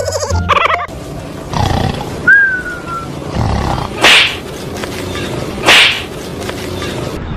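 Two loud, harsh big-cat roars about a second and a half apart, the roar of a fake-lion prank. A short high whine falling in pitch comes about two seconds in.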